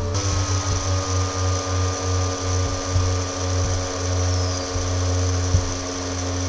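A steady motor drone: a constant low hum with several unchanging whining tones above it, and a few faint low knocks.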